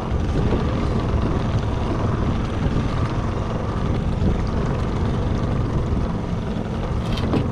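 Small boat's outboard motor running steadily, a low rumble with a few faint steady tones over it. A sharp knock near the end.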